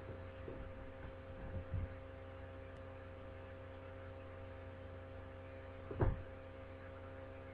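Steady electrical mains hum on the recording, with a few soft bumps as the book is handled; the loudest bump comes about six seconds in.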